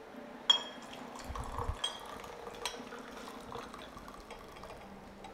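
Tea poured from a glass gaiwan into a glass pitcher, the lid held ajar, with light trickling and several sharp clinks of glass on glass; the loudest clink comes about half a second in.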